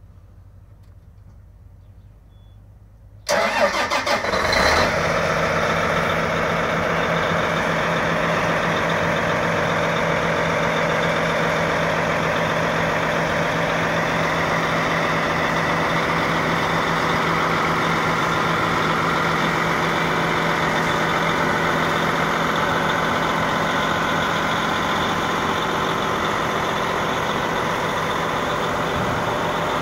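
2014 John Deere 9460RT tracked tractor's six-cylinder diesel cranking and catching about three seconds in, with a rough second or so of starting, then running steadily at a low idle.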